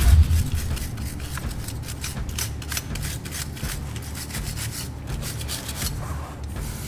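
Steel wire brush scrubbing rust and dirt off a car's wheel studs and hub nut in quick, repeated back-and-forth strokes.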